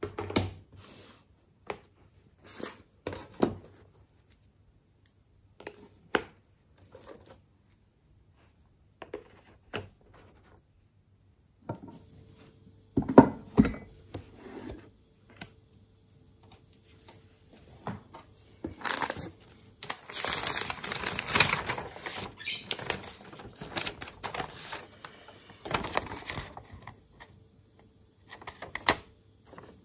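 Household handling sounds: scattered light knocks, taps and clicks of objects being moved, then a faint steady hum starting about twelve seconds in and a denser stretch of rustling and clattering from about nineteen seconds.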